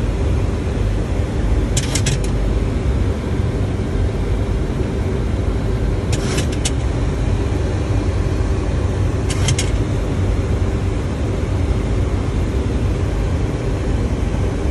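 Steady low rumble inside a Boeing 737 cockpit on final approach: airflow and engine noise. Three brief bursts of rapid clicking come about two, six and nine and a half seconds in.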